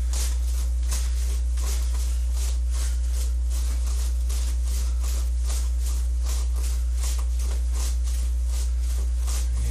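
Quick swishes and scuffs of jab-cross punches thrown with a pivoting front foot, about three a second, over a loud steady low hum.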